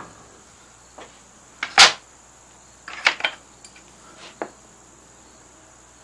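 A few light knocks and clicks of a steel carving gouge handled against the wooden board. There is a sharper knock nearly two seconds in, a small cluster about three seconds in, and one more tap near four and a half seconds.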